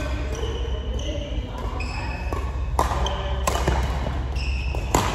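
Short high squeaks and several sharp thuds over a steady low rumble, with voices faintly in the background.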